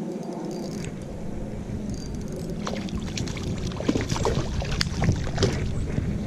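A hooked trout thrashing and splashing at the surface, a run of sharp splashes from about three to five and a half seconds in, over a steady low rumble.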